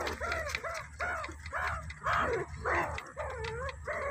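Meerkats calling with a rapid series of short barks, about three a second, each rising then falling in pitch.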